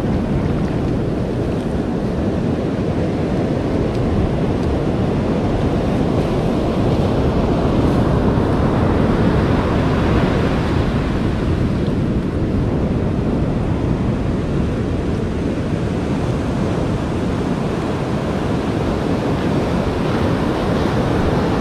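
Ocean surf breaking and washing up the beach, foamy water swirling around the feet, with wind buffeting the microphone. The wash swells louder around the middle.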